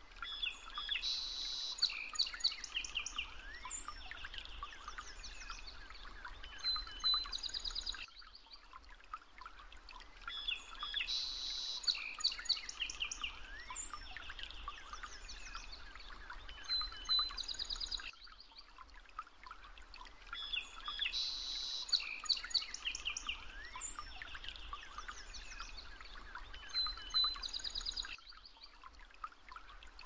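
Looped recording of birdsong: several birds chirping and trilling. The same ten-second stretch repeats three times, with a short quieter gap between repeats.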